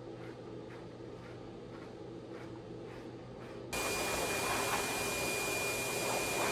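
A forced-air pet grooming dryer, blown through a hose onto a wet dog's coat, switches on suddenly about two-thirds of the way in: a loud steady rush of air with a high whistle. Before it, a low hum with faint brush strokes about three a second.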